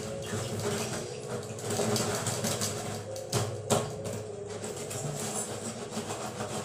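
Kachoris deep-frying in hot oil in a kadhai, a steady sizzle, while a metal skimmer lifts them out and clinks against the pan twice about three and a half seconds in. A steady low hum runs underneath.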